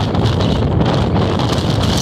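Wind buffeting the microphone: a loud, steady rumble.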